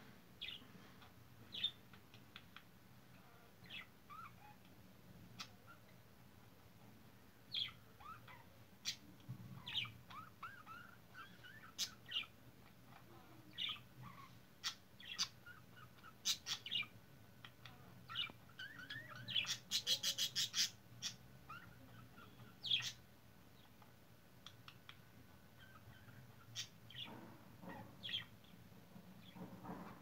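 Budgerigar warbling and chattering: scattered short chirps and soft warbled runs, with a quick string of about eight sharp clicks about two-thirds of the way through.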